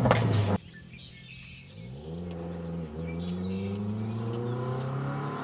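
Toyota 4AGE twin-cam four-cylinder in a Lotus Europa, driving toward the listener, its engine note climbing slowly in pitch after a brief dip about three seconds in. It comes after a loud noise that cuts off abruptly within the first second. Birds chirp faintly.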